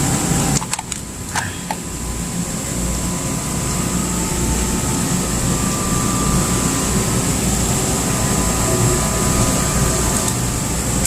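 Steady low mechanical hum with hiss, and a few sharp clicks about half a second to a second and a half in, where the hum drops as the cooler's power plug is pulled.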